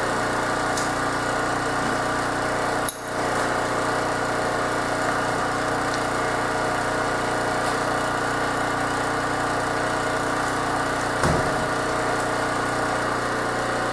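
Steady machine drone, like a motor running unchanged, with a brief dip about three seconds in and a single light click near the end.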